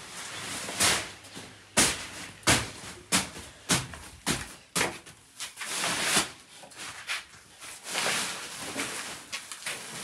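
Irregular knocks, thumps and rustling from handling heavy woven sacks: sacks dropped, dragged and heaved up. About a dozen sharp hits are scattered through it.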